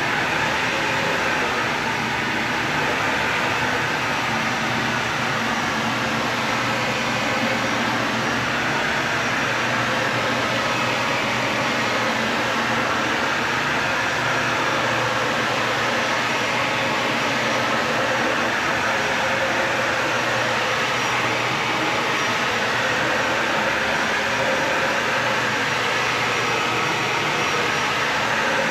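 Dyson vacuum cleaner running steadily, a continuous whooshing motor-and-airflow noise with only slight swells as it is pushed about.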